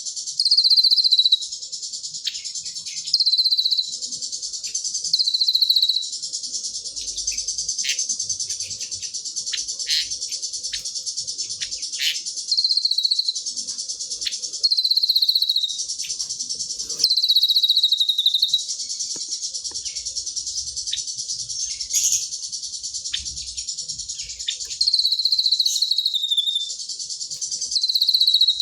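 A caged songbird singing 'cililin' song: a high, rapid trill that keeps going, broken about every two seconds by a louder high phrase about a second long that falls slightly at the end.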